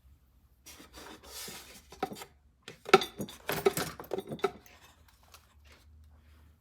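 Small hard objects clinking and rubbing as they are handled, a cluster of quick clicks and scrapes about three seconds in, over a faint low hum.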